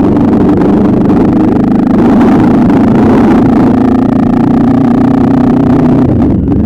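Motorcycle engine running at a fairly steady speed while being ridden, loud and constant.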